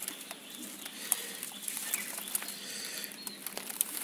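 Faint bird chirps over a light outdoor hiss, with scattered sharp clicks and rustling from the handheld camera being moved close to the grass; the loudest clicks come about a second in and near the end.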